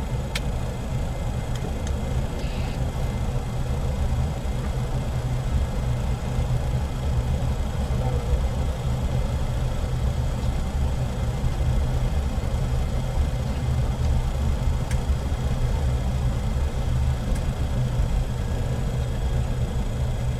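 Steady low rumble inside the cockpit of a Boeing 727-100F freighter, its three Pratt & Whitney JT8D engines at idle as it taxis onto the runway, with a faint high whine over it.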